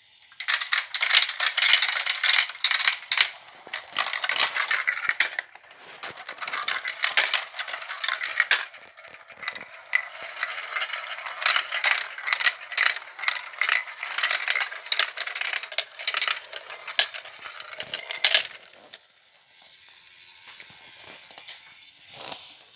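Marbles rolling and clattering down the plastic track of a VTech Marble Rush set: a dense run of clicks and rattles that dies down to a soft rattle near the end.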